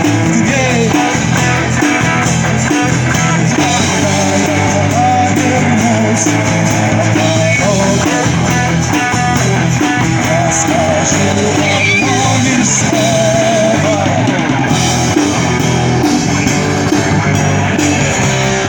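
Rock band playing, with guitar and singing over a steady bass line.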